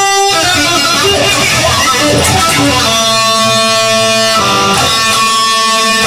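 Instrumental section of a song with no vocals: guitar chords played and then held, each ringing for over a second in the second half.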